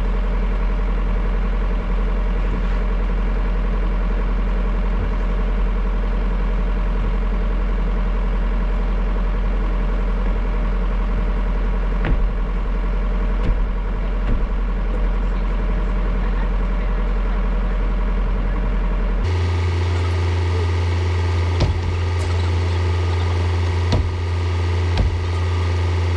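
Excavator's diesel engine running steadily with a deep hum. About nineteen seconds in, the sound changes abruptly to a higher engine hum with scattered sharp knocks.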